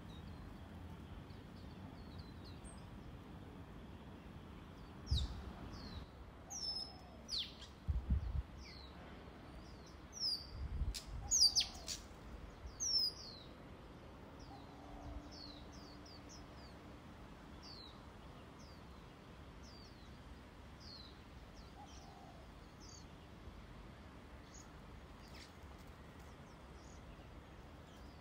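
Small birds chirping with many short, high calls over a faint steady outdoor hiss. A handful of low thumps and sharp clicks come between about five and thirteen seconds in, louder than the birds.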